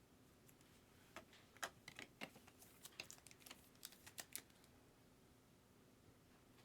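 Faint, irregular clicks and taps of trading cards and their plastic holders being handled, bunched in the first half and then near silence.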